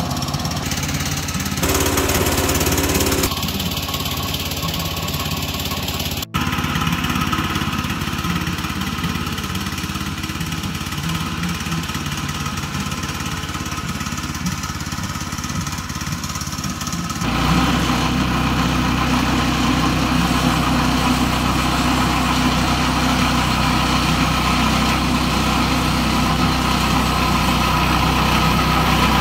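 Small gasoline engine of a Woodland Mills HM122 portable bandsaw mill running steadily. It breaks off abruptly a few times in the first six seconds and grows louder from about seventeen seconds in.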